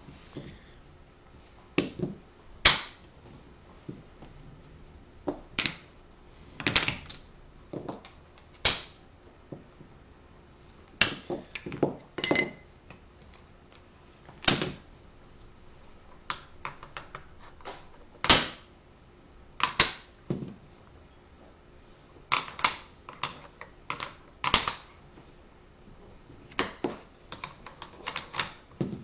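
Tegu magnetic wooden blocks clacking together as they are placed and pulled apart by hand: irregular sharp clacks, some single and some in quick clusters, with short pauses between.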